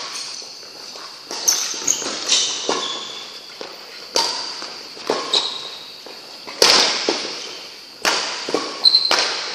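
Badminton rally: rackets striking the shuttlecock about a dozen times at uneven intervals, each sharp hit echoing in a large sports hall, with short squeaks of shoes on the court floor.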